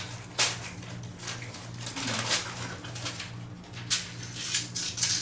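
Scattered clicks and knocks, as of dishes and utensils handled while eating, with two sharper clacks about half a second in and near four seconds, over a steady low hum.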